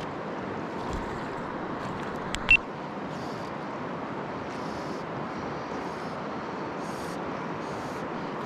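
Steady rushing of river water flowing over stones, with one short sharp click about two and a half seconds in.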